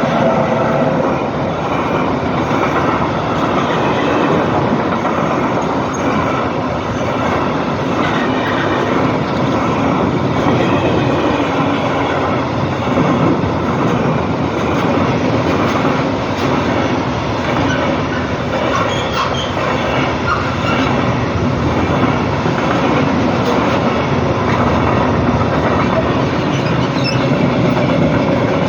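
Freight train wagons rolling past with steady wheel clatter, and squealing from the couplings between the wagons.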